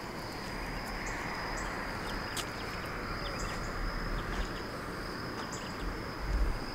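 Insects trilling steadily outdoors at dusk, a high, even tone with short higher chirps over it, above a steady hiss of background noise. A brief low rumble comes near the end.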